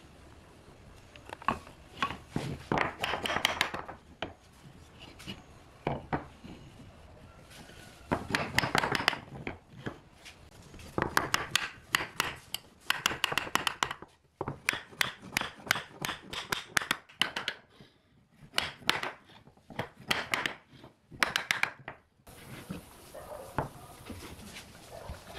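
Notched wooden frame pieces being pushed and slid together in their joints, wood rubbing on wood, with clusters of sharp knocks from a wooden mallet tapping the joints home. A steady hiss comes in near the end.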